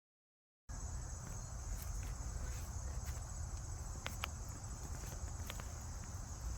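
Ambience that starts abruptly out of dead silence under a second in: a steady high-pitched insect-like drone over a low rumble, with scattered faint clicks.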